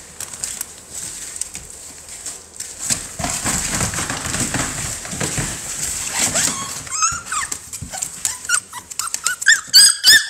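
Young American bully puppies whining and yelping, a run of short high cries that rise and fall, loudest near the end. Before that, scratching and rustling as they scramble on the plastic pool and wood shavings.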